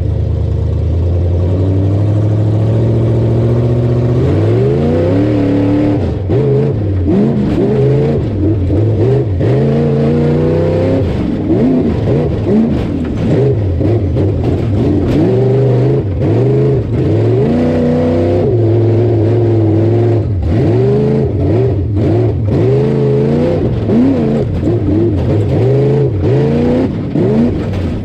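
Race vehicle's engine, heard from inside the cockpit. It runs steadily at idle for about four seconds, then revs hard again and again, the pitch climbing under acceleration and dropping as the driver lifts through the turns of a dirt course.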